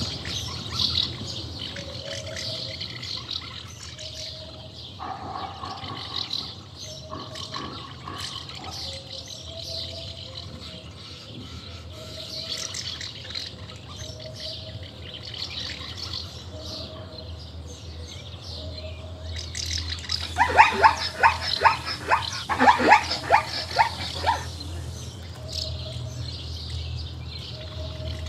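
Birds chirping and calling outdoors, with one short mid-pitched note repeating about every second and a half. About twenty seconds in, a loud run of rapid harsh calls lasts some four seconds. A low steady hum sits underneath.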